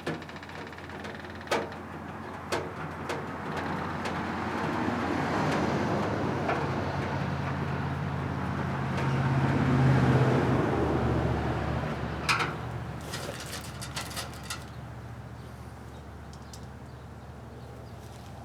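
A motor vehicle passing by: its engine drone and noise build over several seconds to a peak about ten seconds in, then fade. Scattered light metallic clicks and knocks from handling screws and sheet-metal cabinet panels.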